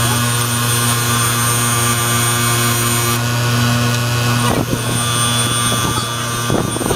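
Bench grinder running with a steady hum while a steel roller chain is held against the wheel, the steel grinding with a hiss as the pin heads are ground down to break the chain. About two-thirds through the sound turns rougher, with light clicks and chain rattle.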